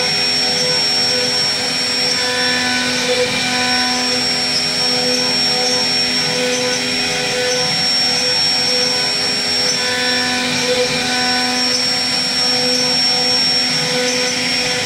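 CNC router spindle running at speed with a steady high-pitched whine while its bit carves into wood, the rougher noise of the cutter rising and falling as it moves through the cut.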